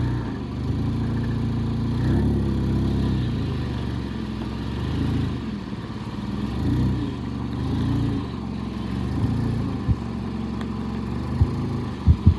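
Forklift engine running, rising and falling in revs several times as the forklift is driven and positioned. A few sharp knocks near the end.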